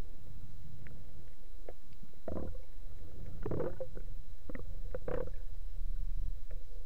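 Underwater sound picked up through a speargun-mounted camera housing as a freediver swims up to the surface: a steady low rumble of water, with a run of short gurgles and sloshes through the middle as the camera nears and breaks the surface.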